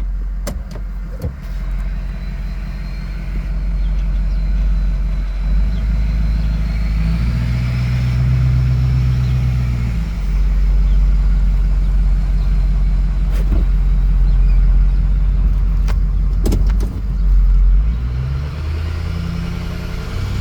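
Ford 6.0 Powerstroke V8 turbo-diesel running, its engine note climbing and falling, with a thin high turbo whistle that rises slowly in pitch over several seconds as the engine pulls. A few sharp clicks come through in the second half.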